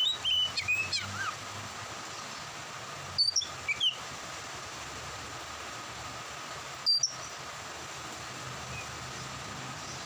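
Oriental magpie-robin singing: a quick run of clear, sliding whistled notes in the first second, then a few short sharp chirps about three to four seconds in and one more about seven seconds in, over a steady background hiss.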